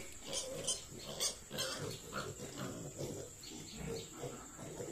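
A pen of young piglets grunting and squealing, with the loudest calls in the first two seconds.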